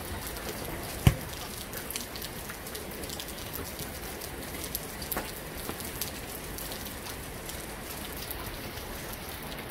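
Steady rain pattering, with many small drop clicks. One loud thump about a second in.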